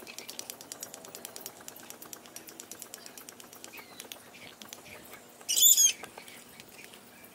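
Soft fish-food pellets clicking and rattling as a spoon stirs them in a stainless steel bowl: a rapid run of light ticks that fades out. A little over halfway through, a bird gives one short, loud call.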